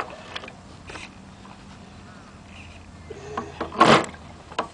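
OK Model Commander 123 model engine being hand-started: its propeller is flicked by hand, giving several sharp knocks, the loudest near the end, without the engine catching.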